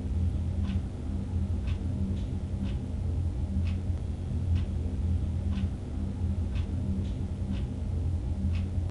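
A steady low hum with a faint, even tick about once a second.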